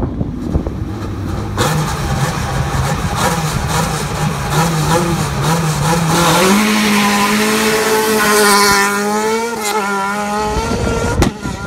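Renault Clio rally car's engine held at high revs on the start line, the note stepping a little. About six seconds in it launches away and accelerates hard, the revs climbing.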